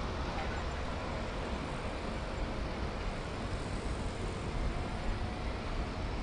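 Steady road traffic noise, an even rumble with no single event standing out.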